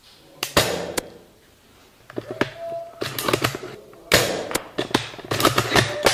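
Airsoft gunfire: an irregular run of sharp snaps and clicks, coming in clusters.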